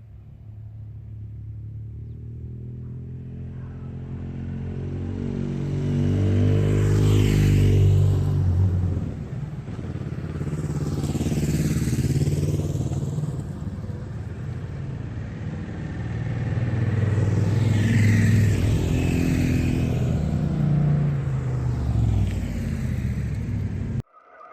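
Motorcycles riding past one after another, the engine sound swelling and fading as each goes by; several pass in turn before the sound cuts off suddenly near the end.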